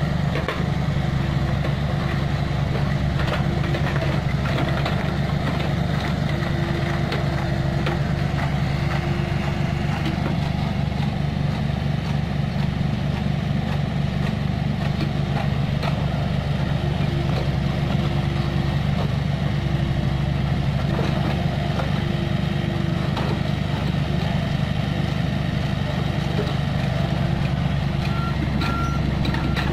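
Komatsu PC45 mini excavator's diesel engine running steadily under working load, with a low whine that comes and goes and scattered clanks. Near the end a high reversing beeper starts sounding in short repeated beeps.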